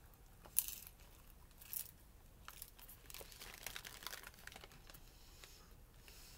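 Plastic storage bag holding a large marshmallow popcorn ball crinkling faintly in short bursts as it is handled, along with chewing of the sticky popcorn.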